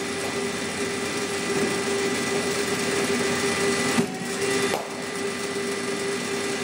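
Steady machine hum with a constant tone. About four seconds in come two sharp knocks under a second apart, the first the louder, as a cricket ball is delivered and played off the bat.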